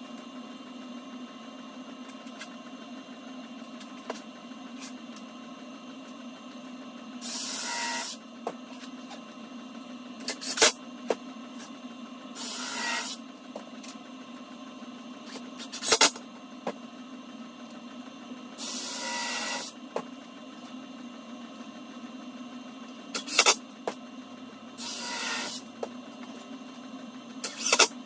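A power drill running in short bursts of about a second, four times, driving screws into the MDF frame, with sharp single clicks in between. A steady low hum sits under it throughout.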